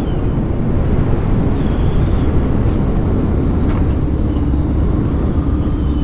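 Skyreach Bushcat light sport aircraft's engine and propeller running at low power as it rolls over a grass strip after landing, a loud, steady rumble. A steady hum joins in about four and a half seconds in.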